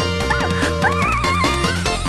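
Background music: a bending, wavering lead melody over a repeating bass line.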